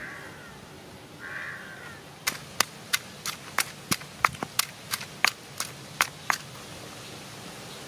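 Stone pestle pounding in a stone mortar: about a dozen sharp knocks, roughly three a second, starting about two seconds in and stopping a little before the end.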